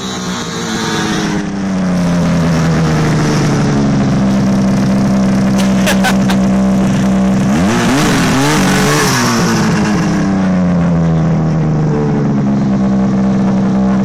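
Ski-Doo MX Z snowmobile engine running close by, settling to a steady pitch, with a few quick revs up and down about eight seconds in. A few sharp clicks come just before the revs.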